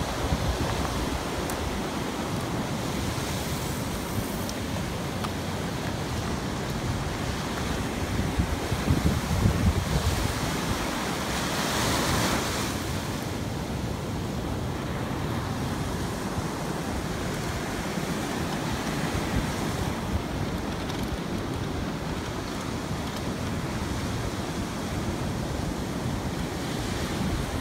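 Wind rushing over the microphone of a moving beach land yacht, with surf breaking along the shore. The wind buffets harder near the middle, and a louder hiss swells briefly just after it.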